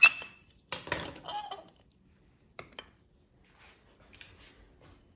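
Cutlery clinking and scraping on a plate: a sharp ringing clink at the start, about a second of clatter after it, then two light taps.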